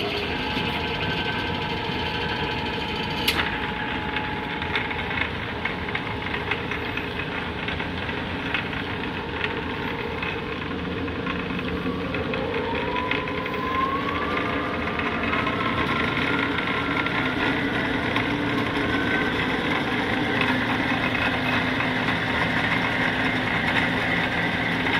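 Clausing 5914 variable-speed lathe running in back gear at the low end of its range, around 60 RPM, with a steady gear whine. About halfway through, the whine rises in pitch over a few seconds as the variable-speed dial is turned up, then holds at the higher speed.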